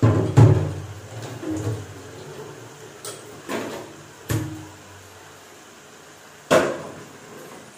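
Kitchen clatter: a string of six or so knocks and bangs of things being handled and set down, some with a brief ringing after them, the loudest right at the start and another sharp one near the end.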